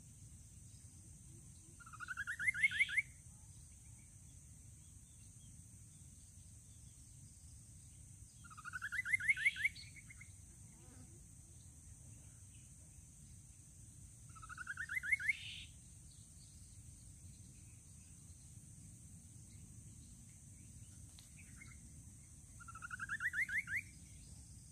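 Rufous-capped babbler singing: four songs spaced several seconds apart, each a quick rising trill of about ten notes lasting about a second. A steady high hiss runs underneath.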